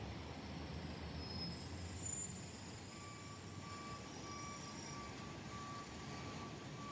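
Heavy rescue fire truck's engine running, then from about three seconds in its reversing alarm starts beeping steadily as the truck backs up.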